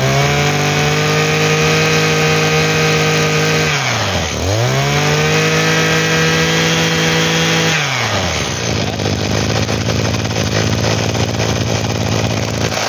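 Shingu 26cc two-stroke brush cutter engine revved up twice, each time held high for about three and a half seconds, then dropping back to a steady idle. The seller judges the engine still in good condition.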